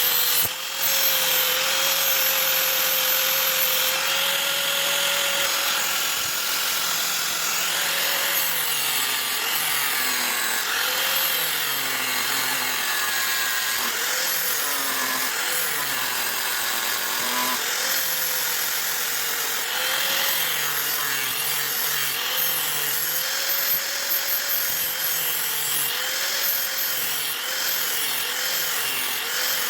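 Electric grinder working steel on a bowie knife blade: a steady grinding hiss over the motor's hum, whose pitch sags and recovers every couple of seconds as the blade is pressed on and eased off.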